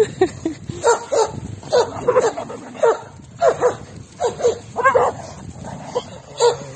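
Dogs barking and yelping in a quick, uneven string of short barks, roughly two a second.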